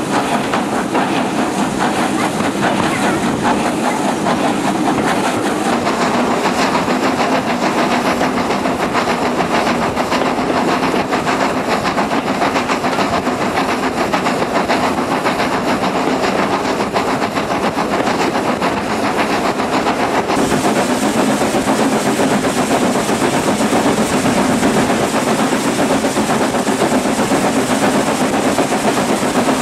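Steam locomotive hauling its train, heard from a carriage window close behind the engine: a steady mix of exhaust chuffing, steam hissing and the clatter of wheels on the rails, with no let-up.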